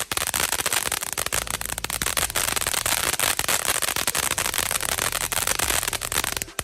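TNT Centennial ground fountain firework burning, a steady hiss packed with dense, rapid crackling. It cuts off abruptly at the very end.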